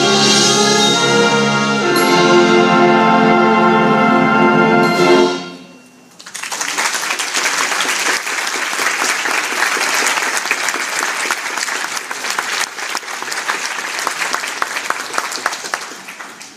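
Concert band of flutes, clarinets, brass, tuba and double bass plays its closing chords, changing chord about two seconds in and cutting off about five seconds in. After a short pause the audience applauds steadily.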